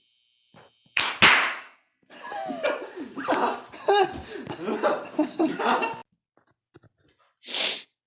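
A loudspeaker connected straight to mains power from a wall outlet: a loud, sharp burst about a second in as the mains blows the speaker, followed by about four seconds of wavering, mixed noise and a short hiss near the end.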